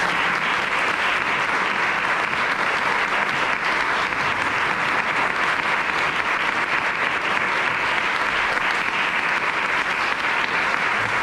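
A roomful of people applauding: steady, dense clapping from a seated audience.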